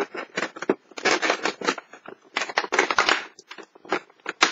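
Cardboard door of a Kinder chocolate advent calendar being pried open by hand: irregular scraping, crinkling and clicking of card and the wrapped chocolate, in several short bursts.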